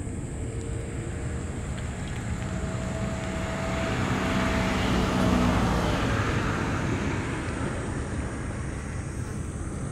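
A motor vehicle passing by: its engine hum and noise swell to a peak about five seconds in, then fade away. A steady high-pitched whine sits under it.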